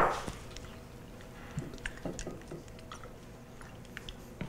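One sharp knock at the start, as of something set down on a wooden countertop. Then faint scattered clicks and soft handling sounds while raw tuna is oiled and seasoned on a plate.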